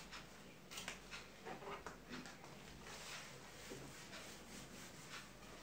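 Faint, intermittent rubbing strokes of a duster wiping a whiteboard clean.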